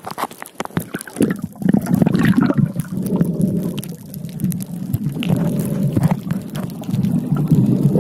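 Water heard from a camera held underwater: a muffled rushing and sloshing, with many small clicks and crackles.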